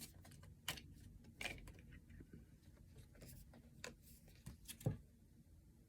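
Faint, irregular clicks and rustles of oracle cards being shuffled and drawn from the deck, with a slightly louder tap about five seconds in.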